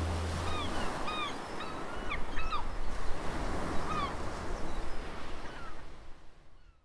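Birds calling in short chirps and falling cries over a steady rushing background, with a low sustained note dying away at the start. Everything fades out near the end.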